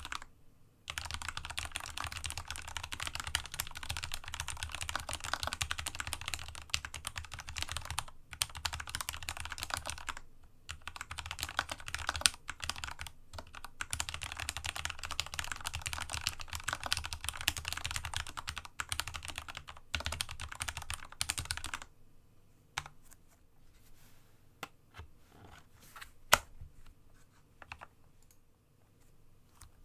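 Rapid, continuous typing on a Dygma Raise split mechanical keyboard with lubed Cherry MX Red linear switches, resting on a desk mat, with a few brief pauses. After about 22 seconds the typing stops, and only scattered single clicks and taps are left, one of them sharp and loud.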